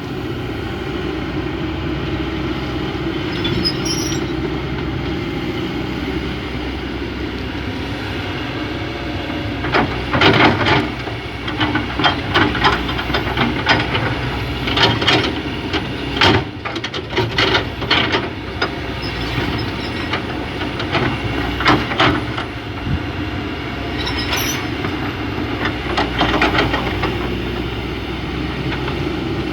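Diesel engine of an excavator running steadily. From about a third of the way in, a long run of loud clattering and scraping crashes breaks over it as the bucket works material and drops it into a dump truck.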